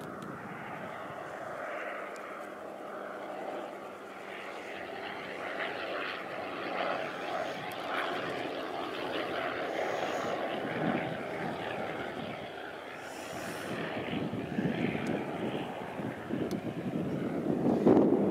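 Propeller aircraft flying a display, its engine a continuous drone that grows louder over the last few seconds as it comes closer.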